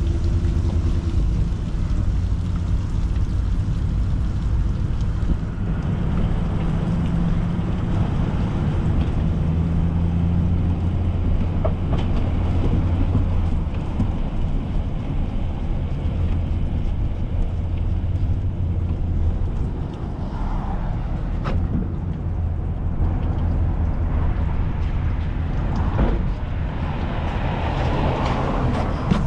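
Engine running steadily with a low hum. Its tone changes about six seconds in, and it eases off about twenty seconds in.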